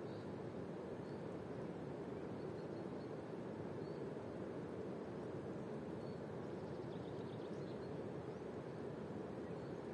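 Steady outdoor ambience: an even rushing noise at a constant level, with faint, short high bird chirps now and then, a small run of them about seven seconds in.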